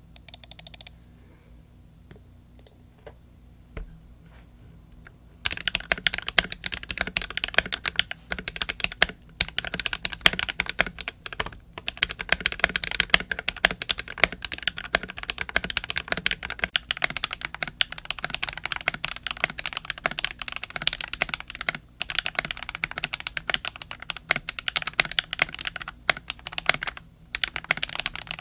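Typing on a mechanical keyboard fitted with Akko CS Matcha Green linear switches. A few scattered keystrokes come first, then fast, continuous typing starts about five seconds in, with a few brief pauses.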